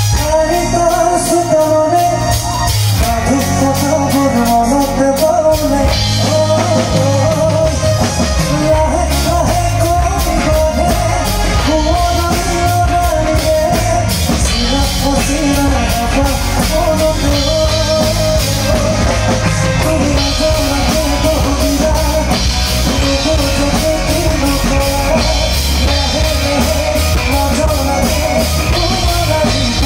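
Live band music at full volume: a male vocalist singing over drum kit and electric bass.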